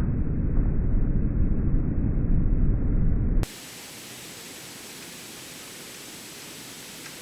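Low rumble of thunder rolling on after a close lightning strike. About three seconds in it cuts off abruptly to a quiet, steady hiss.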